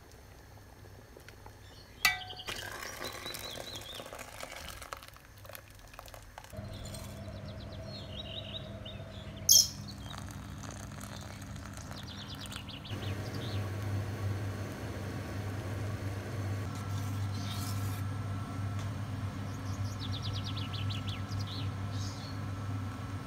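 Birds chirping intermittently in the background over a steady low hum, with two sharp clicks; about halfway through, the hum grows louder with a steady rushing noise.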